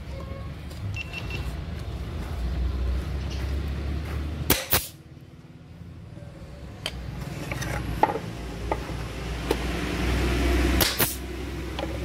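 A handful of sharp knocks and clicks from assembling a plywood birdhouse, the loudest a close pair near the middle and another near the end, over a steady low rumble.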